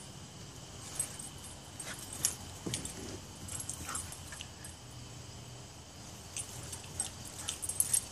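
A dog at play on a lawn: one brief whimper a little under three seconds in, among scattered faint clicks.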